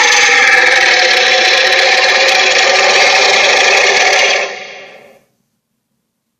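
Cartoon sea monster roar sound effect: one long, loud, rough roar that holds steady for about four seconds, then fades out over about a second.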